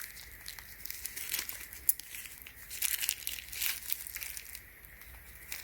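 Light rustling and a few sharp clicks as a paintless dent removal claw puller and its plastic packaging are handled.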